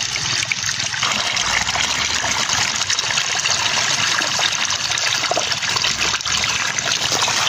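Irrigation water gushing steadily out of a hose outlet and running into a flooded furrow between corn plants.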